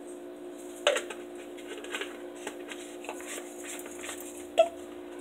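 Quiet kitchen room tone with a steady low hum, broken by two soft knocks, one about a second in and one near the end.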